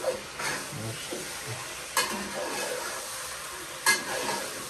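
Food sizzling in a hot pot as it is stirred, with a utensil knocking sharply against the pot three times, about two seconds apart.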